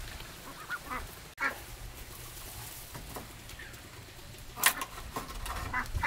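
A flock of white domestic ducks quacking in scattered short calls, with one louder, sharper sound a little over halfway through.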